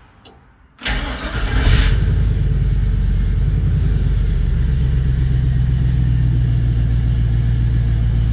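1954 Chevy 3100 pickup's engine cranked and catching about a second in, with a short flare, then settling into a steady idle. This is the first start after the swapped cylinder 4 and 5 wires in the engine harness were corrected at the computer plug, the cause of the misfire and backfiring.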